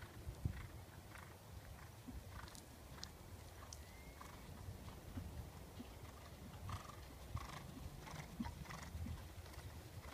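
Faint, irregular hoofbeats of a dressage horse moving over the arena surface, over a steady low rumble, with a few light clicks and a brief high whistle about four seconds in.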